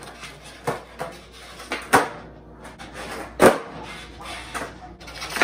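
Skateboard on a bare concrete floor: wheels rolling between a series of sharp clacks as the tail pops and the board lands, the loudest clack about three and a half seconds in.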